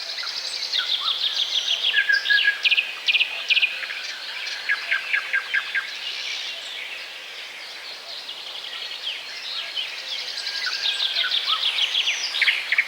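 Small songbirds chirping and twittering, with rapid runs of short high notes that are busiest at the start and again near the end, over a steady background hiss.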